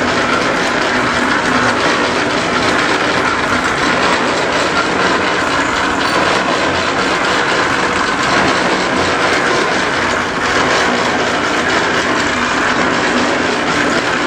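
Steady mechanical rattling and hum of a running machine, loud and unbroken.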